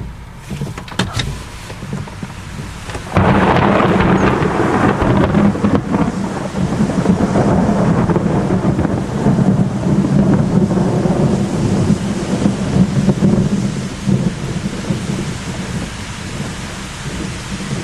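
Thunder from a close cloud-to-ground lightning strike, less than half a kilometre away: a sudden loud crack about three seconds in, then a long rumble that slowly fades.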